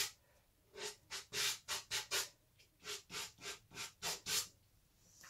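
Pastel stick scratching across pastel paper in a run of short strokes, about a dozen in quick succession, with quiet gaps at the start and near the end.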